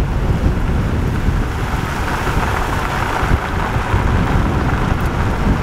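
Strong wind buffeting the camera microphone: a loud, steady rushing rumble with no pauses.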